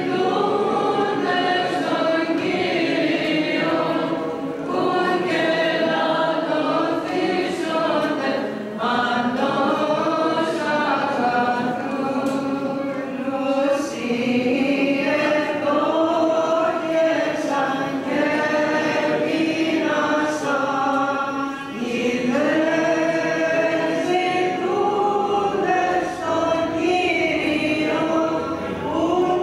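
Group of voices singing Greek Orthodox Byzantine chant, one melodic line held and slowly bending in pitch with a few short breaths between phrases.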